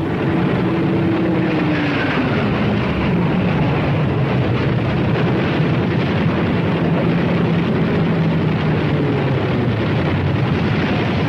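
Aircraft engine running loud and steady over a rushing noise; its pitch drops about a second or two in, then holds.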